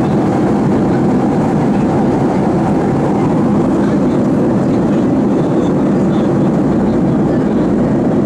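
Steady cabin noise of a Boeing 737 airliner in flight, heard inside the cabin: the even rush of the jet engines and the airflow over the fuselage, low and unchanging.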